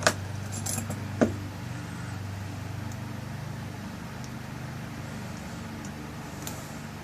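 Small metal clicks and light jingling of lock hardware as the tail piece is screwed back onto a rekeyed lock cylinder. There are two sharp clicks, one at the start and one about a second in, then fainter ticks, over a steady low hum.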